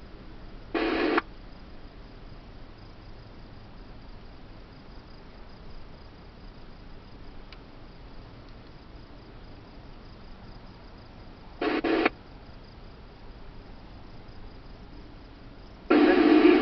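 Radio scanner hissing between transmissions. A short burst of static comes about a second in, and a quick double burst near twelve seconds, like a radio being keyed without speech. A louder transmission begins near the end.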